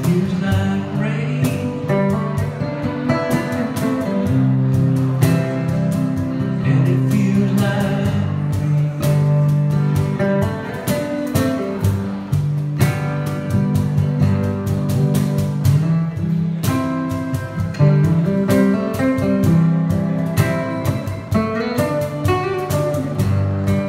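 Acoustic guitar played through a slow song, a steady run of plucked and strummed chords and notes.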